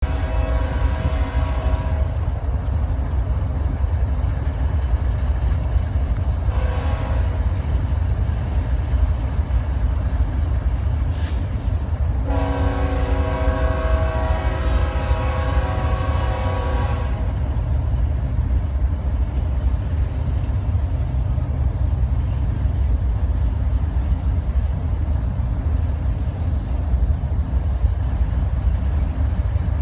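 BNSF diesel freight locomotive air horn sounding three times: a blast of about two seconds at the start, a short toot around seven seconds in, and a long blast of about five seconds from roughly twelve seconds in. A steady low rumble runs underneath.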